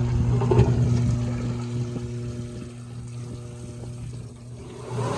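YardBird chicken plucker running with its water spray on: the electric motor hums steadily under water hissing onto a chicken jammed among the rubber plucking fingers. The sound grows quieter through the middle and comes back up near the end.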